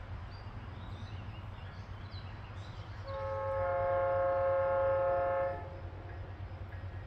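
Diesel locomotive air horn sounding one long blast, a chord of several notes lasting about two and a half seconds, starting about three seconds in. Under it is a steady low rumble of diesel engines.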